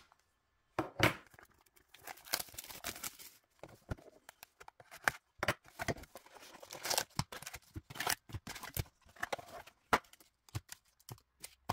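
Packaging being torn open and crinkled by hand as a box of Upper Deck MVP hockey cards is unwrapped: a run of irregular tearing rasps, crackles and sharp clicks.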